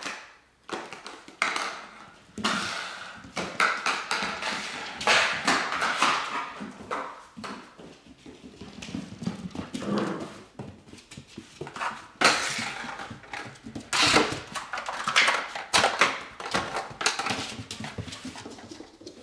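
A Dalmatian puppy moving about: an irregular run of short knocks, clicks and scuffles.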